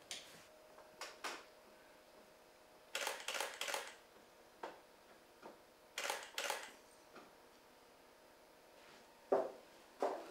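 Camera shutter firing: single frames, and two short rapid bursts of several frames, about three and six seconds in.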